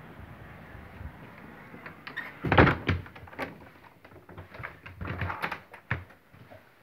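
A balcony door being shut, with a loud thud and rattle about two and a half seconds in, followed by scattered knocks and clicks of handling.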